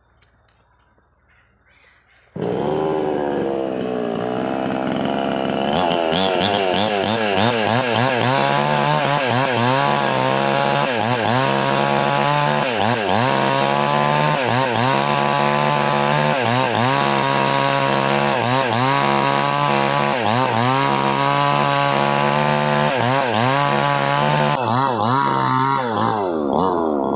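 Near silence, then a gasoline chainsaw comes in suddenly a couple of seconds in and runs loud while cutting wood. Its engine pitch dips and recovers about once a second as the chain bites into the log.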